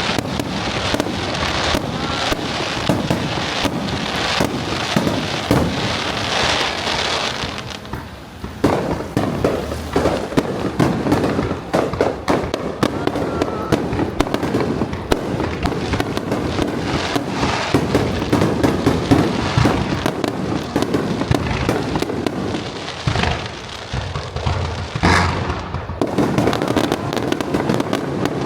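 Aerial fireworks display: a dense, continuous barrage of shell bursts and crackling, with a short lull about eight seconds in and another shortly before the end.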